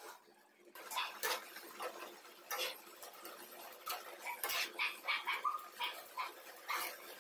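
Metal spatula scraping and knocking irregularly against a nonstick frying pan while stirring grated carrot halwa. There are a few short squeaks about five seconds in.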